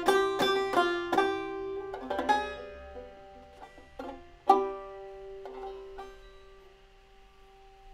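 Five-string banjo tuned gCGBD, played clawhammer: a quick run of plucked notes thins out after about two seconds into a few sparse notes, then one strong final note about four and a half seconds in is left to ring and fade, closing the tune.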